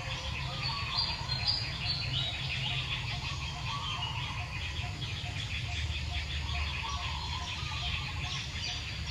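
Birds chirping and calling, with many short overlapping calls and a few brief high whistles in the first couple of seconds, over a steady low rumble.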